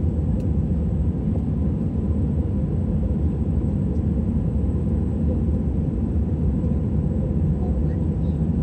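Airliner cabin noise: a steady low rumble of jet engines and rushing air heard from inside the passenger cabin.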